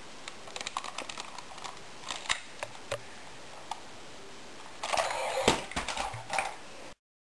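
Handling noise of a plastic Buzz Lightyear action figure and a plush toy on a fabric bedspread: scattered light clicks and rustles, then a louder burst of rustling with a thump about five and a half seconds in, before the sound cuts off suddenly.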